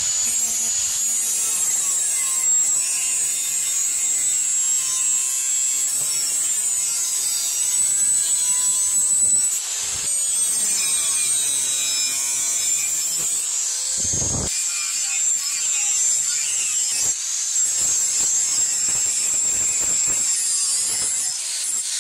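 Electric angle grinder with a thin cutting disc running against the steel plate of a hoe blade cut from old disc plough steel. Its high motor whine dips and recovers as the disc bites into the metal.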